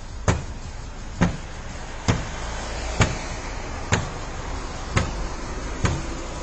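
A metal socket wrench smashing down on the carbon-fibre bonnet of a Porsche Carrera GT, seven hard blows a little under a second apart.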